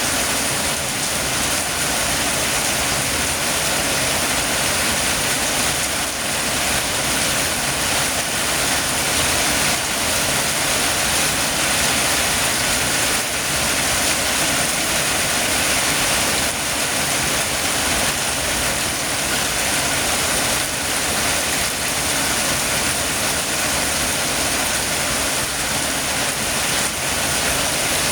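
Heavy rain falling steadily, a dense, even hiss of drops with no breaks.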